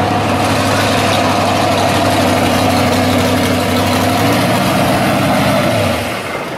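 Engine of a 1970 Chevelle Malibu pro street drag car idling steadily. Near the end its pitch sinks and the sound dies away.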